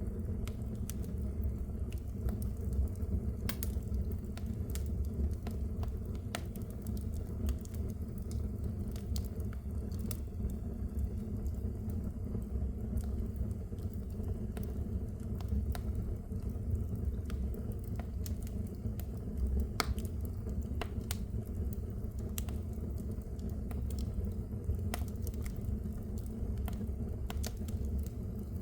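Wood fire burning in a fireplace: a steady low rumble of the flames with scattered sharp crackles and pops every second or few.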